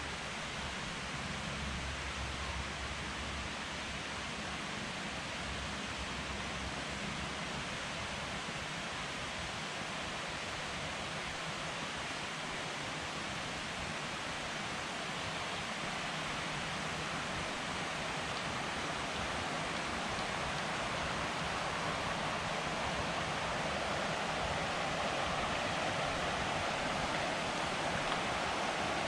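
Steady rush of flowing creek water, growing slightly louder toward the end.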